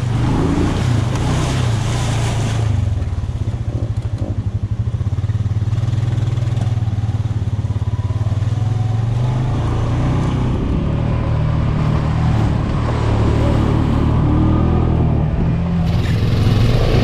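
Side-by-side UTV engine running steadily at low trail speed. About three seconds in it drops to a slow, pulsing idle for a couple of seconds, then picks up again. A rushing, splashing noise through a mud puddle fills the first two seconds and comes back near the end.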